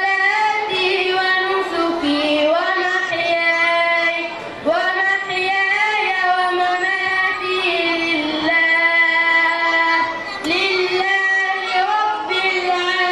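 A boy reciting the Quran in a melodic, chanted style into a microphone, holding long ornamented notes, with brief breath pauses about four and ten seconds in.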